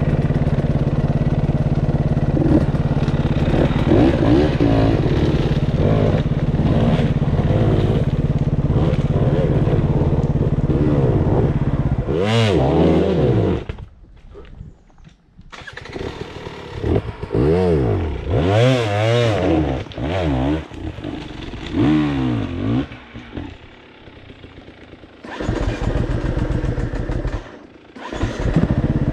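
Enduro motorcycle engine idling steadily, then revved in a series of short throttle blips that rise and fall in pitch. About halfway it drops away to a brief lull, with another lull later, before a steady loud run near the end.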